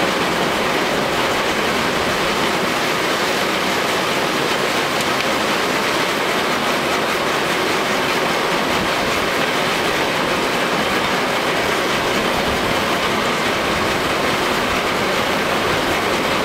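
Stone-crushing plant running: the crusher, conveyor belts and screen make a steady, loud mechanical din as they process rock.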